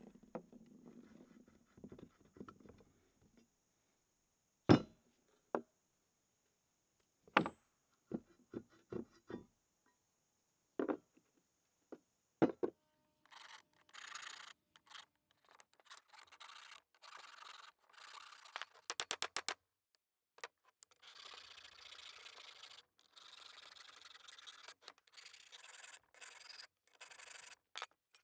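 Scattered sharp clinks and knocks of the cast-iron parts of a mechanical floor jack being handled on a wooden bench. About halfway through, a flat hand file starts rasping across a cast-iron jack part in repeated strokes with short pauses, broken once by a quick run of clicks.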